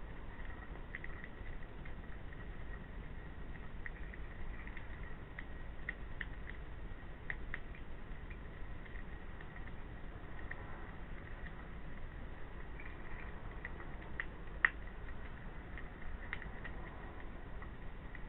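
European hedgehog eating from a plate: a run of small, irregular chewing and smacking clicks, with one sharper click about fifteen seconds in, over a steady low hiss.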